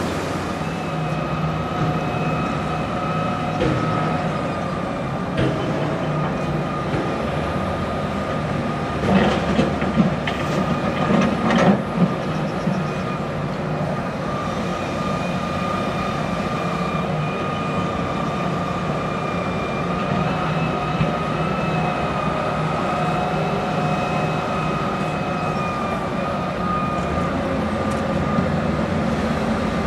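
Hitachi Zaxis 350 LCN crawler excavator working: its diesel engine runs steadily with a constant high whine, and there is a burst of clanks and knocks about ten seconds in as the bucket digs.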